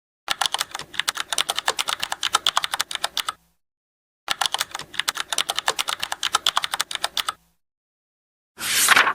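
Keyboard typing sound effect: rapid key clicks in two runs of about three seconds each. Near the end comes a short rustling swish of a book page being turned.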